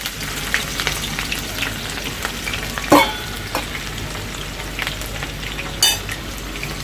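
Chopped onion sizzling as it fries in hot oil in a pan, stirred with a utensil that scrapes and clicks against the pan, with a louder clatter about three seconds in and another near the end.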